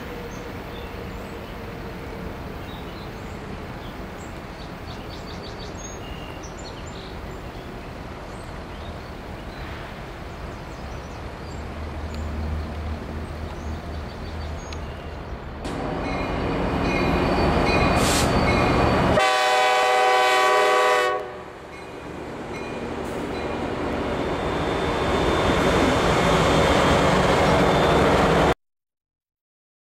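Diesel freight locomotives rumbling, growing louder as a train draws near and passes, with one horn blast of about two seconds past the middle. The sound cuts off abruptly near the end.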